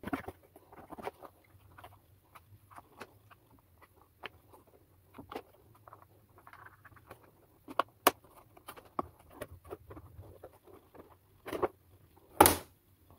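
Small knife scoring and cutting through a thin plastic tub lid: irregular scraping, scratching and clicking, with louder sharp clicks about eight seconds in and near the end.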